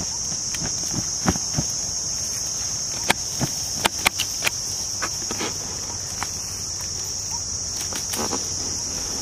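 A steady, high insect chorus drones throughout. Over it come scattered crackles and rustles of dry leaf litter from footsteps and from the Indian rat snakes being shaken out of the bag onto the ground, the loudest cluster about three to four and a half seconds in.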